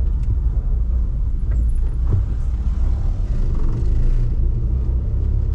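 A car driving slowly along a city street: a steady low rumble of engine and road noise.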